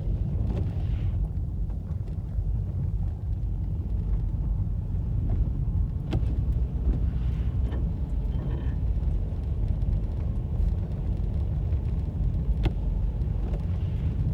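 Car driving uphill on a snowy, icy road, heard from inside the cabin: a steady low rumble of engine and tyres, with a few sharp clicks.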